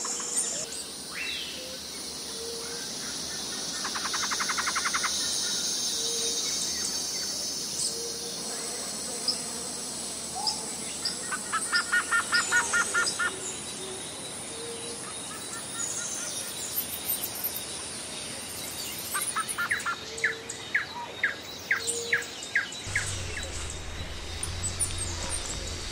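Birds chirping and calling in quick series of repeated notes over a steady high hiss of insects. A low rumble comes in near the end.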